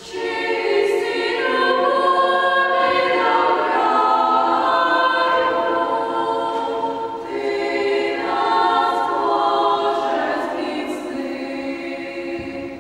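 Girls' choir singing a cappella in several parts, with long held chords; the phrase eases off just before the end.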